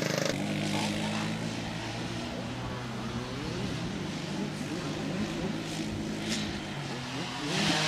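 Small quad bike (ATV) engine running at a steady pitch, with a constant hum.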